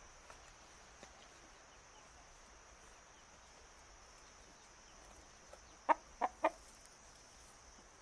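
A chicken clucking three times in quick succession, short calls a little over half a second apart, over a steady high hiss.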